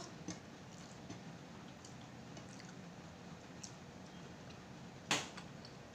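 A person eating with her fingers: soft chewing and small wet ticks and clicks, with one sharper, louder smack about five seconds in.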